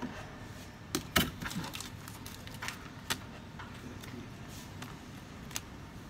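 Scattered sharp clicks and light taps from small tools and phone parts being handled during a smartphone repair, the loudest about a second in, over steady low background noise.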